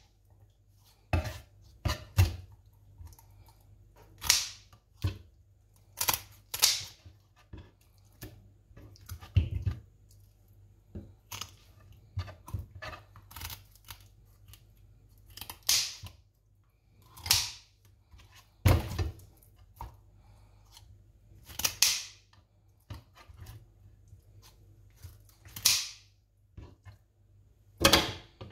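A kitchen knife cutting the spiny fins off a sea bream on a cutting board: crisp cuts and short scrapes, one every second or two at an irregular pace, with occasional knocks of the blade on the board.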